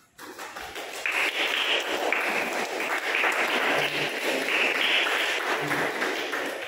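A group of people applauding. The clapping builds up in the first second, holds steady, and fades away near the end.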